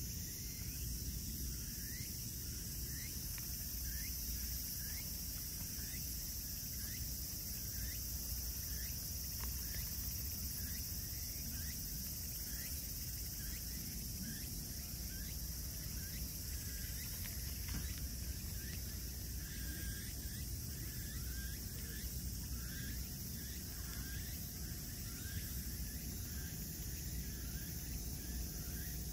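Outdoor ambience of insects trilling steadily at a high pitch, with a string of short chirps repeating about twice a second and a low rumble beneath.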